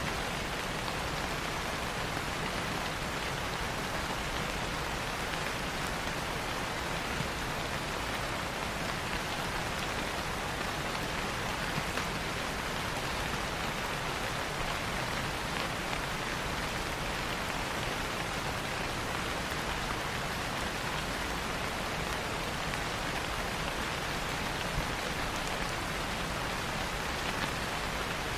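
Steady rain falling in an even hiss, with a few faint pops scattered through it.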